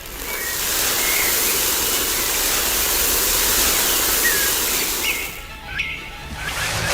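A loud, steady rushing noise, like running water, with birds chirping over it; it fades about five seconds in and a second short rush comes near the end.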